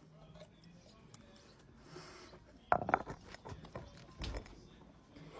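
A person chewing pickled jalapeños: wet, clicky mouth and chewing sounds with a sharp cluster just before the middle, a breath, and a low thump a little later.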